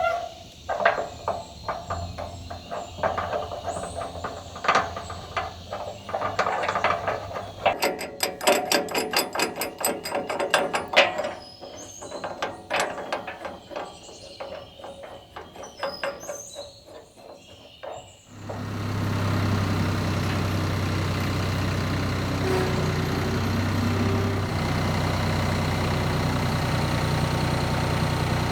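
Irregular clanks, clicks and knocks, with a stretch of fast, even ticking in the middle. About two-thirds of the way in, a vehicle engine takes over, running steadily at idle with a strong low hum.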